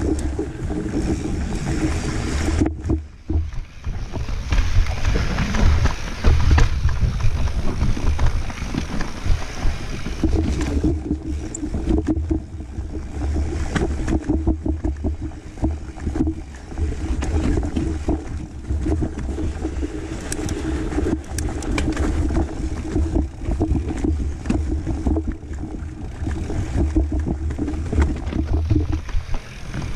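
Mountain bike rolling fast down a rocky dirt trail: tyres crunching over dirt and stones and the bike rattling with many sharp knocks over rocks, with heavy wind buffeting on the microphone.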